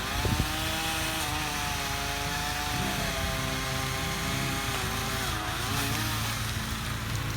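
Small two-stroke chainsaw engine running at high revs, its pitch rising at the start and wavering, with a dip about five and a half seconds in as it is loaded cutting a pine branch.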